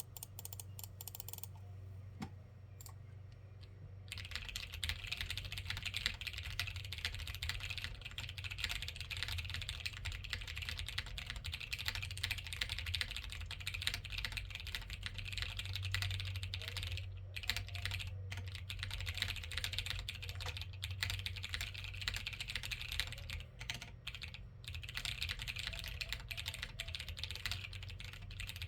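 Continuous typing on a plateless custom mechanical keyboard with lubed TKC Dragonfruit light tactile switches and PBT keycaps. A few stray keystrokes are followed, about four seconds in, by a steady flow of fast key clacks with the odd short pause, over a low steady hum. The sound is full but somewhat dull, with a slightly weaker spacebar.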